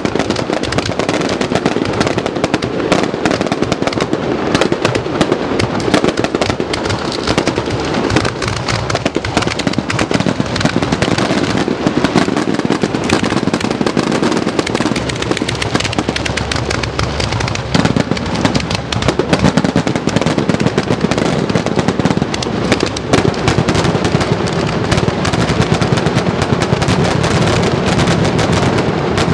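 Aerial fireworks fired at close range in a dense, unbroken finale barrage: rapid launches and overlapping shell bursts with crackling, no pauses.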